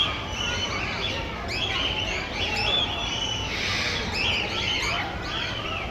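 Many small birds chirping together in an aviary: short, high, arching chirps that repeat and overlap continuously.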